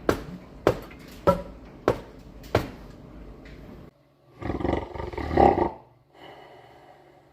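Five sharp knocks, evenly spaced about two-thirds of a second apart, then about four seconds in a loud rough noise lasting a second and a half.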